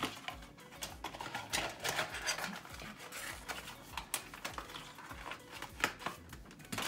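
Hands handling small items: irregular light clicks and crinkling, like polish bottles and packaging being moved about and set down.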